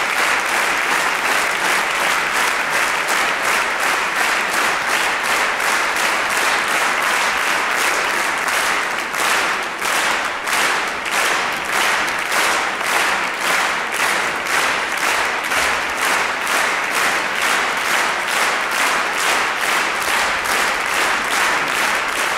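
Concert hall audience applauding. About nine seconds in, the clapping falls into rhythmic unison, about two claps a second.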